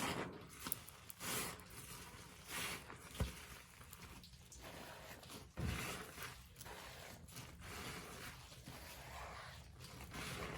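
A sponge soaked in Pine-Sol cleaner squeezed by hand over and over: wet squelching, crackling foam and liquid pouring out in a string of uneven squeezes, with a sharp click a little past three seconds in.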